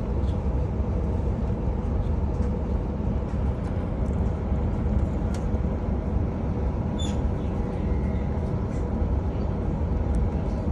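Passenger train running, a steady low rumble of wheels on rails heard from inside the carriage, with faint clicks and a brief high squeak about two-thirds of the way through.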